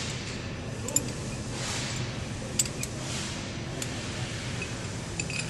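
Hand tools working the turret station's clamping screws: an Allen key with a steel tube on it clinks sharply against metal about five times, with softer scraping between, over a steady low hum.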